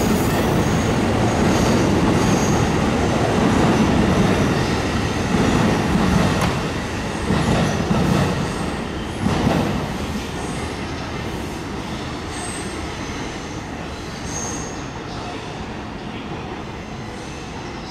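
JR Takasaki Line train rolling along the platform, with steady wheel and track noise and a few brief high wheel squeals. It fades away after about ten seconds as the train moves off.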